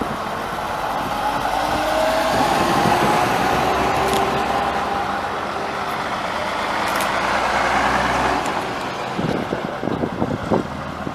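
Vintage London Transport buses, an RF single-decker followed by an RT double-decker, driving past one after another with their diesel engines running; the engine note rises and falls as each one goes by. Near the end another bus passes close by.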